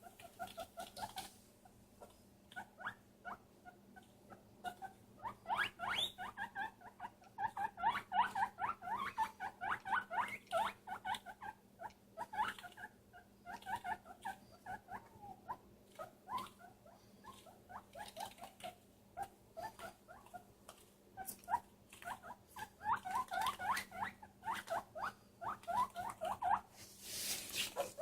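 A small pet animal squeaking in quick runs of short, high chirps, over a faint steady hum. A brief rustle comes near the end.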